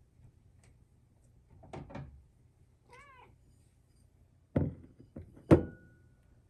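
A pet cat gives one short, wavering meow-like call about three seconds in, followed by two sharp knocks, the second the loudest, with a brief ring after it.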